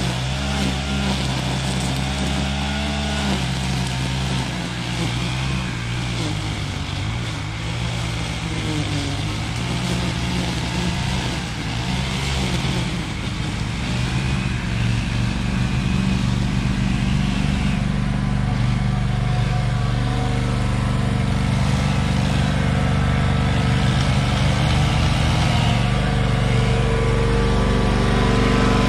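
Stand-on commercial mower engine idling steadily close by, growing a little louder about halfway through. A smaller engine, a string trimmer, revs up and down in the background.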